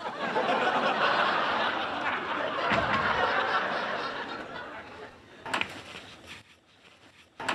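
Sitcom studio audience laughing, swelling at once and fading away over about five seconds. A couple of short clicks follow near the end as the apartment door is opened.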